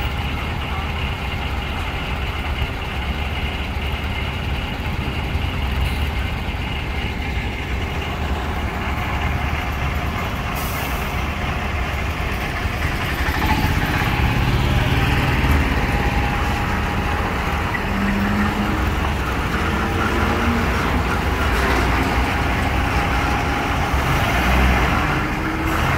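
Truck engine running steadily, with a short hiss about ten seconds in and a little louder in the second half.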